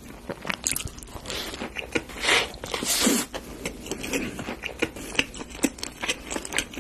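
Close-miked crunching and chewing of a crispy fried-chicken burger, with a few louder crunchy bites about two and three seconds in.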